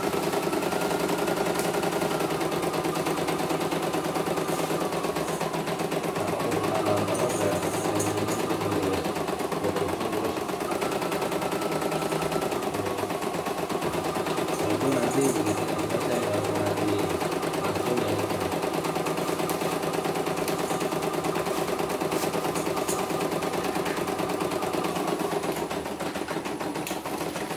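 CNY E900 computerised embroidery machine stitching a design: the needle runs in a fast, steady rattle over the hum of its motor.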